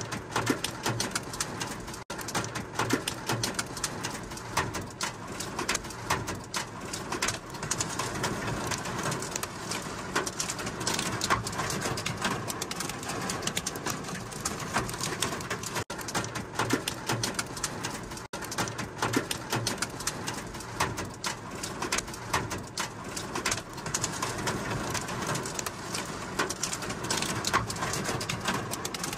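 Heavy rain pounding on a car's roof and windshield, heard from inside the car: a dense, steady patter of drops.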